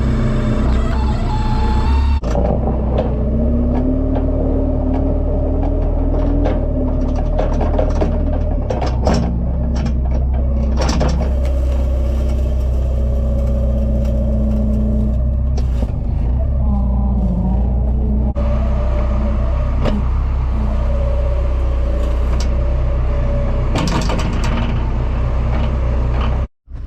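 Farm machinery engine running steadily under load, with a whine that rises and falls and a few short knocks or scrapes; the sound drops out for a moment near the end.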